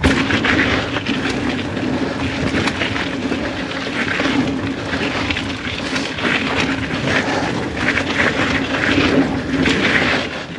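Santa Cruz Hightower LT mountain bike rolling fast down a packed-dirt trail: the tyres rumble over the ground and the bike rattles with small clicks over bumps and rocks. A steady low hum and wind noise on the helmet camera's microphone run under it.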